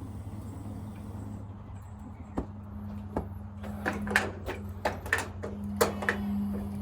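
A steady low hum under a string of sharp, irregular knocks and clatters that start about two seconds in and come thickest in the second half.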